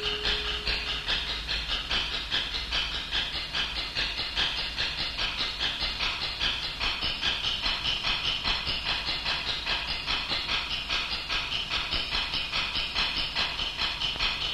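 A steady, rhythmic hissing chug at about four beats a second, like a steam train running.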